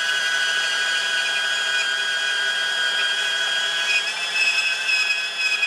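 Makita cordless portable bandsaw, fitted with a standard 18-teeth-per-inch blade, cutting through 40 x 40 x 2.5 mm steel box section. It makes a steady high whine over a rasping cut, the pitch shifts about four seconds in, and it stops abruptly near the end.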